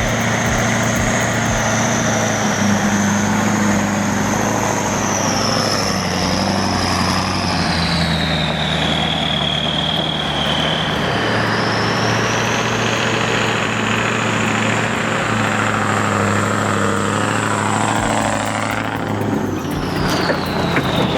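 Scania 140 trucks' V8 diesel engines running as they pull away, under a steady low engine note. A high whistle falls in pitch, rises again, and drops away sharply near the end.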